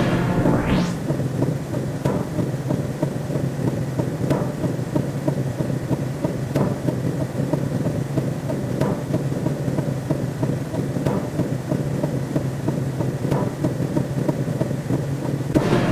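Sci-fi 'space, galaxy, eerie' sound effect: a dense steady rumbling drone with faint clicks about every two seconds and a rising whoosh just after the start.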